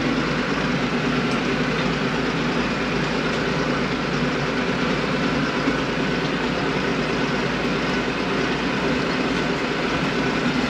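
Vehicle engine running steadily while it drives across the field pulling a seeder to plant corn rows.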